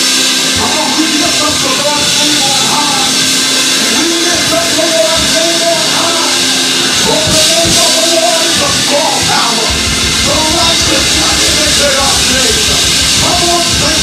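Live gospel worship music: a man sings a wavering melody into a microphone over a band with a drum kit. A deep bass layer comes in about ten seconds in.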